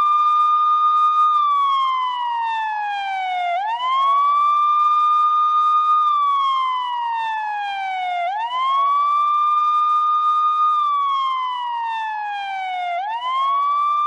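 Police siren sound effect wailing in a slow cycle. The pitch holds high for about a second and a half, slides down over about two seconds, then sweeps quickly back up. The cycle repeats about three times.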